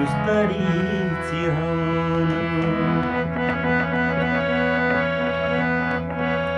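Hand-pumped harmonium playing an instrumental melody over steady held reed tones.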